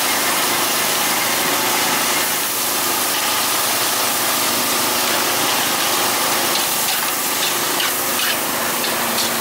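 An engine running steadily, with a constant loud hiss of street noise over it.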